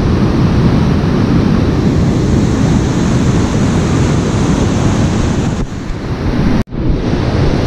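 Ocean surf breaking on a beach, a steady loud rush with wind buffeting the microphone. The sound cuts out for an instant about a second before the end.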